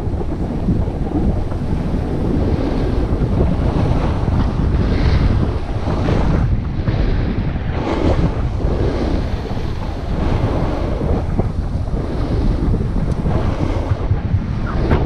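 Wind buffeting a body-worn camera's microphone during a fast descent of a groomed ski run, a steady low rumble, with the hiss and scrape of packed snow under the rider surging now and then.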